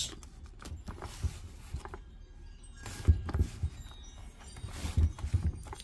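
Cardboard firework cake box being handled and turned around on a table: light rubbing with a few soft knocks, one about halfway through and a couple more near the end.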